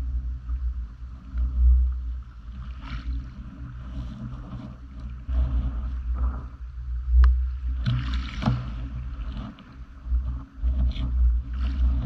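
Gusty wind rumble on the microphone over gentle water at a pebble shore, with a few short scraping sounds and one sharp click about seven seconds in.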